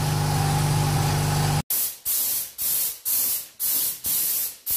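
Paint being sprayed onto metal parts: a continuous hiss over a steady low machine hum, then, after a sudden break, short spray passes of about half a second each, roughly two a second.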